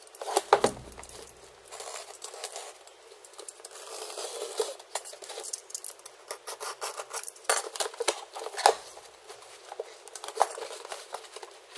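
Utility knife blade slitting packing tape on a cardboard box, in an uneven run of scrapes and clicks, with the cardboard flaps rustling and scraping as they are pulled open. There is a thump about half a second in.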